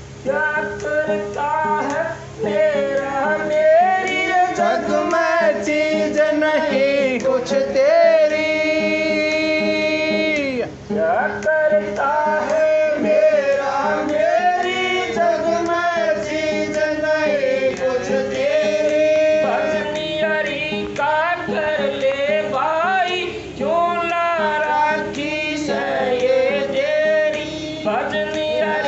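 A man singing a Hindi devotional shabd (Radha Soami hymn) into a microphone, a slow melody with long held notes, one held steady for about two seconds some eight seconds in, over a plucked string accompaniment.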